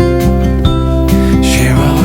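Background music: a gentle acoustic guitar track with a steady beat.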